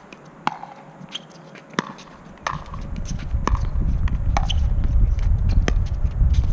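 A pickleball rally: paddles hitting the hollow plastic ball and the ball bouncing on the hard court, giving sharp pops about once a second, some with a short ring. From about two and a half seconds in, a low rumble rises beneath them.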